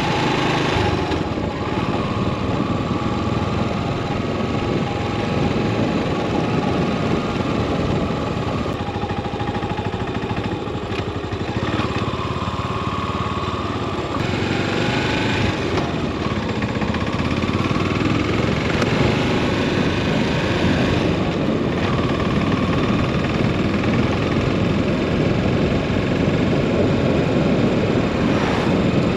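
Yamaha SR400 single-cylinder four-stroke engine running steadily while ridden, its pitch shifting up and down several times.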